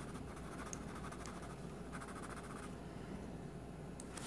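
Coloured pencil shading lightly on paper: faint, rapid back-and-forth scratching that stops about two-thirds of the way through.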